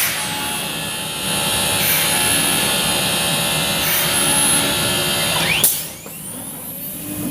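Comec MD TOP CNC woodworking machine cutting a wooden part: a loud, steady spindle whine over cutting noise. About five and a half seconds in there is a sharp burst, and then the sound drops suddenly to a quieter level.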